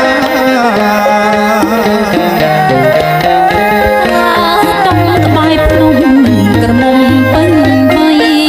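Music: a song with a gliding melody line over steady, rhythmic drum percussion.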